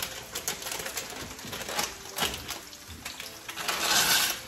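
Kitchen clatter: scattered light clicks and knocks of utensils and cookware, with a short rush of running water near the end.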